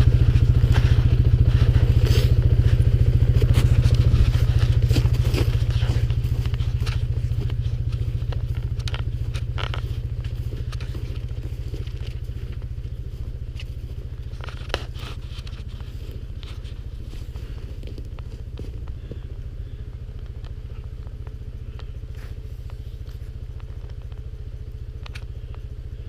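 Quad (ATV) engine running steadily with a low drone, loudest for the first few seconds and then gradually fading as it pulls away.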